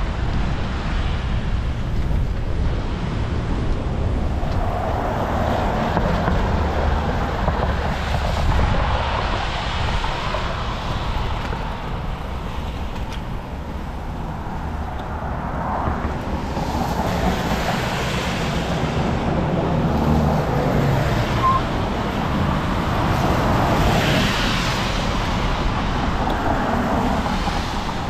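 Road traffic passing, with cars swelling by every several seconds, over a steady low wind rumble on the microphone of a camera mounted on a moving bicycle or rider.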